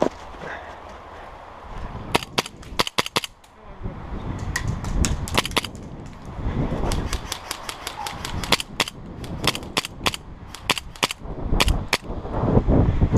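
Airsoft guns firing: sharp snapping shots in quick strings, starting about two seconds in and going on with short pauses between them.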